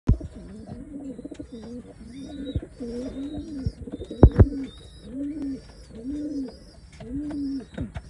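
Racing pigeons cooing in a run of short, low, arching coos about one a second, with faint high chirps over them. Two sharp knocks come about four seconds in.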